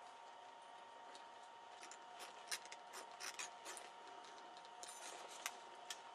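A knife blade sawing at a rope, a string of short, faint, irregular scrapes starting about two seconds in, over a faint steady hum.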